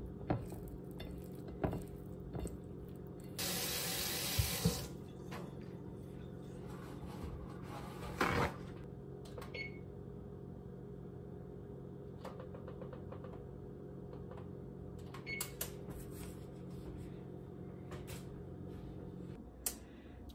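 Quiet kitchen sounds: a steady low hum with scattered light clicks and knocks, and a brief rush of running water from a tap, about a second and a half long, starting about three and a half seconds in.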